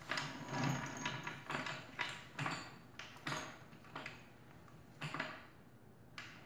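Steel floor jack being worked under a motorcycle swingarm: a series of short metallic clicks and clunks from the jack, roughly one every half second to a second, as it is pumped up to take the load off the rear shock.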